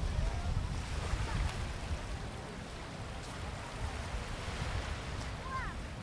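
Sea waves washing onto the beach, with wind buffeting the microphone as a low rumble.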